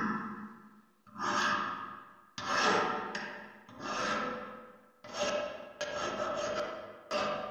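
A hand tool worked against rusty metal in repeated strokes, about one a second; each starts sharply and fades out.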